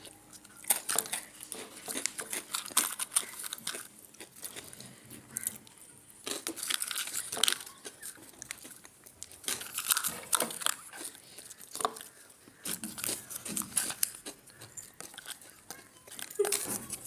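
Irregular rustling and crinkling with scattered small clicks, the sound of things being handled close up.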